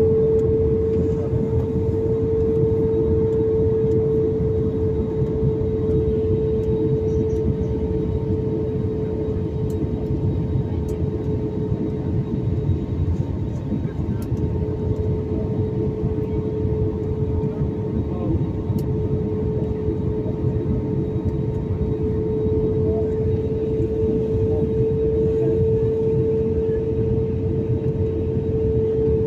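Steady cabin noise inside an Airbus A320-family airliner on its approach for landing: a dense rush of engine and airflow noise with a constant drone held at one pitch.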